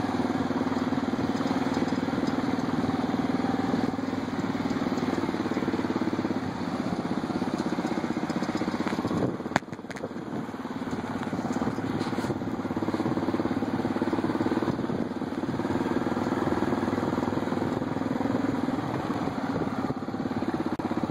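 ATV engines running steadily while riding, with one sharp knock about halfway through, after which the engine sound briefly drops before picking up again.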